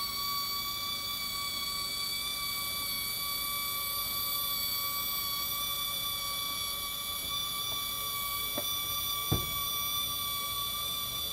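Electric lift mechanism of a truck camper's pop-up roof running as it raises the roof: a steady, even high whine. A light click and then a sharper knock come near the end.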